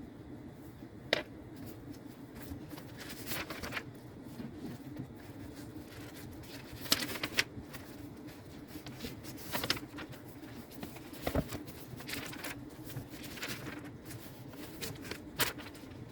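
Irregular light clicks, taps and rustles of small objects being handled, over a steady low hum of room tone.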